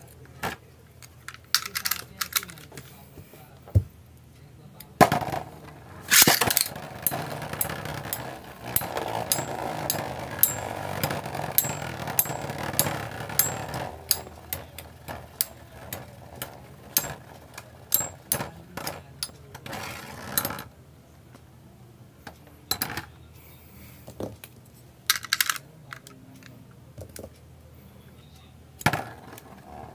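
Beyblade spinning tops battling in a clear plastic stadium: rapid clacks as the tops strike each other and the stadium wall, over the scraping whirr of their tips on the floor. The clashing is densest for the first two-thirds and thins out later, with a loud launch-like burst about five seconds in and again near the end.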